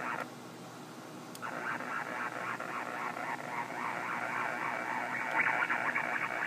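Power line interference coming from a Kenwood transceiver's speaker in AM mode: a rough, crackling hiss. It drops back just after the start and, after a click about a second and a half in, returns at full strength. The interference from the power lines reaches up into the VHF range, around 55 to 58 MHz.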